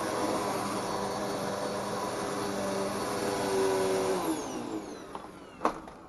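MOOSOO upright vacuum cleaner running steadily, then switched off about four seconds in, its motor whine falling in pitch as it spins down. A single sharp click follows near the end.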